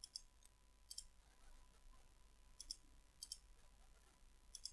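Faint, sharp computer mouse clicks, about five spread over a few seconds, over quiet room tone.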